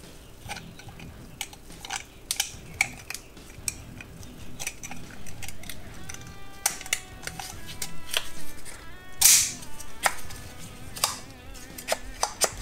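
Light clicks and taps of plastic and metal parts being handled and pressed together: a white plastic collar fitted onto the aluminium valve assembly of a pneumatic framing nailer. A brief louder swish comes about nine seconds in.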